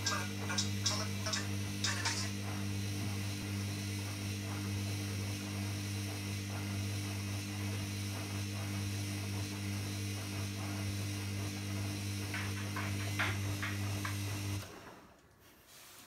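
Hoover front-loading washing machine on its main wash, the motor turning the drum with a steady low hum while water and laundry slosh and splash inside. Near the end the motor stops suddenly as the drum pauses between tumbles.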